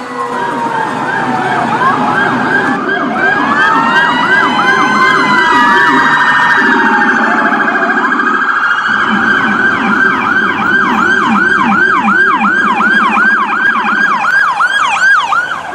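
Several electronic emergency sirens sounding together. Slow rising and falling wails give way to a fast repeating yelp of about three sweeps a second, over a low pulsing buzz.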